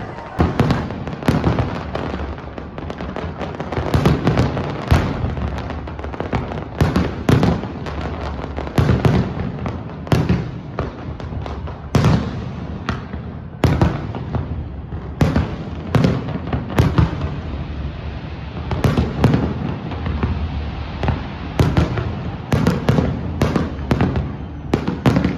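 Fireworks display: a dense, irregular barrage of booms and crackling bursts, sometimes several a second, over a continuous rumble.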